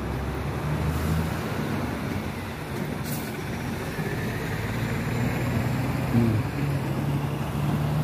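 Diesel engine of a small city bus running as it pulls along the curb at a bus stop, over steady road-traffic noise. A short hiss about three seconds in.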